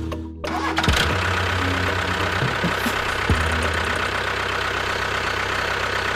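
An engine idling steadily, starting about a second in after a brief drop in sound.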